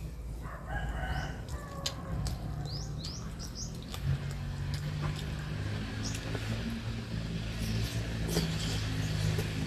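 Small birds chirping with short rising calls over the first few seconds, and a low engine drone that grows louder from about halfway, with a few light clicks.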